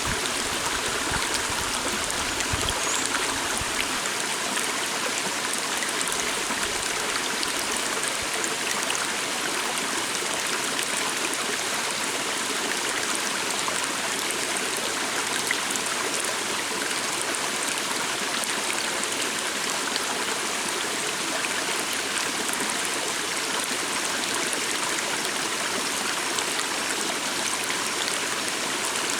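A small stream flowing steadily over rocks, a continuous even rush of water.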